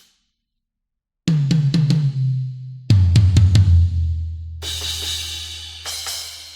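Sampled acoustic drum kit from the EZdrummer 3 Death Metal EZX library playing a fill. After a second of silence come four quick tom hits, then four lower tom hits, then two crash cymbal hits that ring out.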